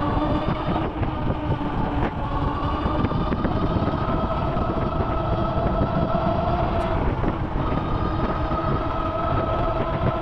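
Whine of an electric motor, a few steady tones that step up slightly in pitch twice, over the continuous rumble of a moving vehicle.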